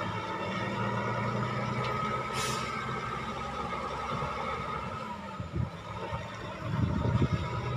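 Four-axle dump truck's diesel engine running steadily as the truck drives slowly over soft ground, with a steady whine above the engine note. A brief hiss comes about two and a half seconds in, and louder rumbles near the end.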